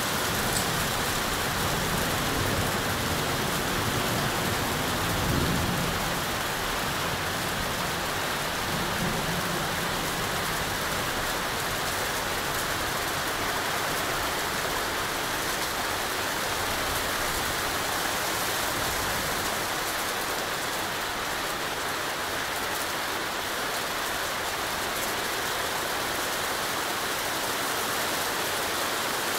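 Heavy thunderstorm downpour: rain falling in a steady hiss, with a low rumble of thunder rising and fading in the first third, loudest about five seconds in.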